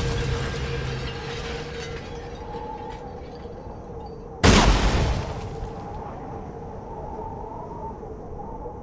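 A single loud gunshot about four and a half seconds in, fired into a back window as a practical effect, with a reverberant tail dying away over about a second. At the start the tail of an earlier shot is still fading.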